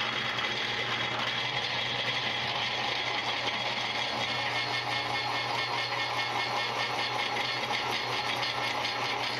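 A drill press runs a 7/16-inch twist bit into the cast-iron housing of a Saginaw power steering gearbox. The motor hums steadily under the even noise of the bit cutting the iron.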